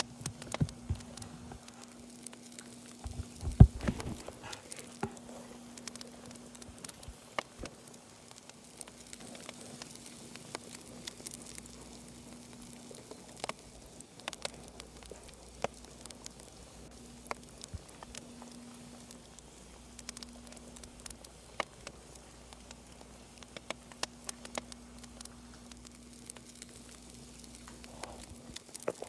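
Scattered crackles and pops of a fireplace video playing on a TV, over a faint steady hum, with a low thump about four seconds in.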